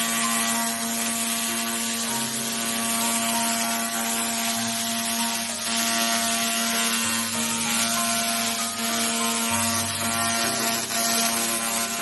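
Handheld fiber laser cleaning machine running: a steady machine hum with a hiss over it, and low tones that shift every second or so.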